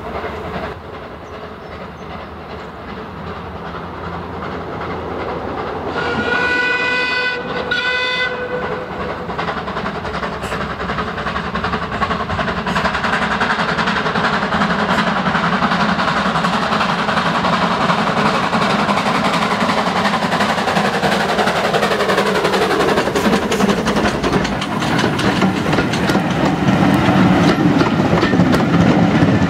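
Small industrial steam tank locomotive working a train towards the listener, growing steadily louder, with two whistle blasts about six seconds in. As it passes, a tone slides down in pitch, then the coaches roll by with a clickety-clack of wheels over the rail joints.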